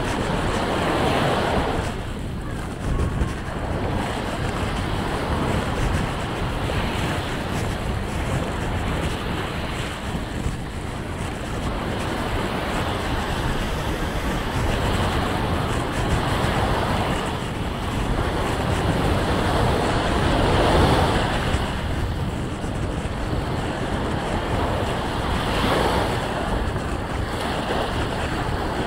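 Sea waves washing onto a beach, surging and receding every few seconds, with wind rumbling on the microphone.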